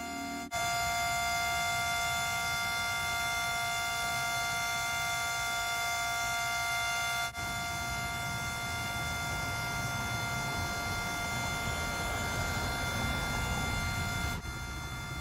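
Civil defense siren sounding one steady high tone, broken by brief gaps near the start, about halfway and near the end, over a low rumble.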